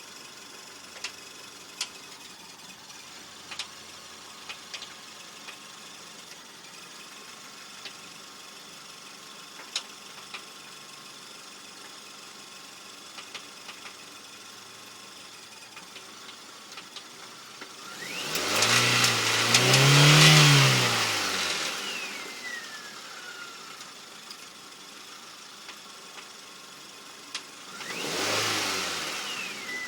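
Mazda car engine idling with scattered sharp knocks, then revved up and allowed to fall back twice: a longer rev about two-thirds of the way in and a shorter one near the end, each trailed by a falling whine. The owner suspects rod knock.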